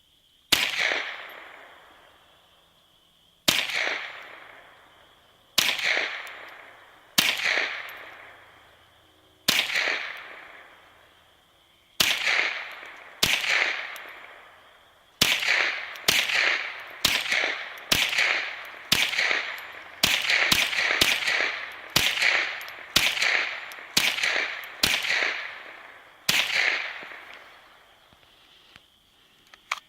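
ISSC MK22 semi-automatic .22 LR rifle firing about two dozen shots, spaced a few seconds apart at first, then coming quicker, under a second apart, through the middle. Each report trails off in a short echo.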